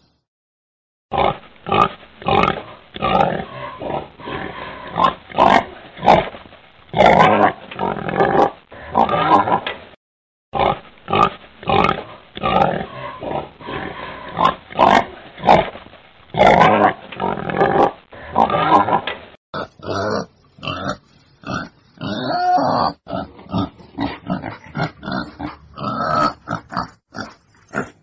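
Wild boar grunting in quick, continuous series of short rough grunts, used as a hunting call lure. There is a pause about a second in and a brief break near the middle. The recording changes to a different take a little past two-thirds of the way through.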